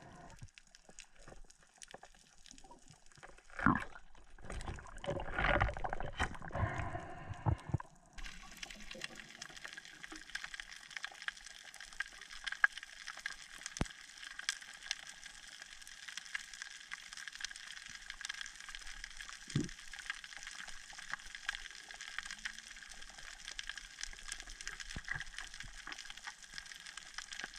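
Underwater sound on a coral reef, heard through a camera housing: a few loud gurgling surges of water and bubbles in the first several seconds, then, after a sudden change about eight seconds in, a steady faint crackle of many small clicks over a soft hiss, the reef's constant underwater crackling.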